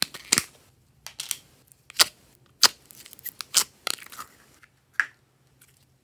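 Clear green glitter slime being pulled from a plastic tub and squeezed by hand, giving a string of sharp, sticky pops and clicks with soft crackling between them.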